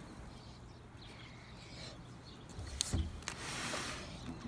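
Two sharp clicks close together about three seconds in, followed by a brief rushing, hissing noise lasting about a second, over faint background noise.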